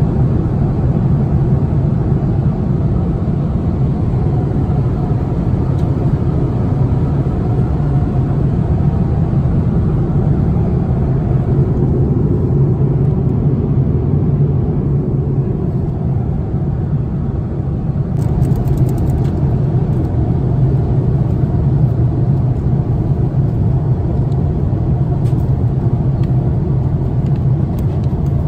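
Steady drone of engine and airflow noise inside an Airbus A330-300's passenger cabin, low and even, with a few faint clicks about eighteen seconds in.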